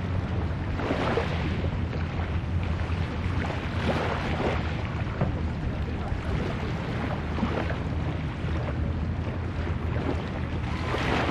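Small waves washing onto the shore, swelling and fading every few seconds, over a steady low rumble of wind on the microphone.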